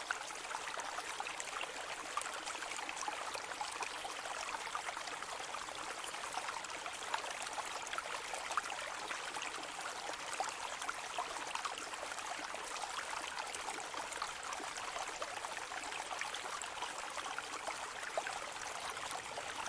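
Steady rain falling on a lake: a dense, even patter of countless small drops hitting the water, with no let-up.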